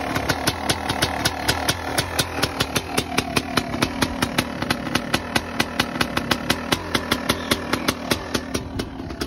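Yamaha YZ250 single-cylinder two-stroke engine idling after a fresh top-end rebuild, with a regular sharp popping about five times a second.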